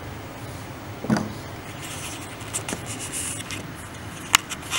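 Handling noises at a tabletop while Play-Doh is worked by hand: a knock about a second in, light rustles and taps, and a sharp click near the end, over a steady low hum.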